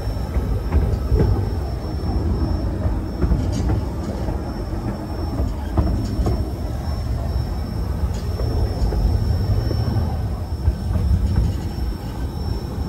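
White Pass & Yukon Route passenger train rolling along the narrow-gauge line: a steady low rumble with scattered faint wheel clicks.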